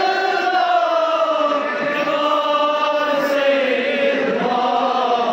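Men's voices chanting a Muharram noha (lament) together, in long held notes that slide slowly in pitch.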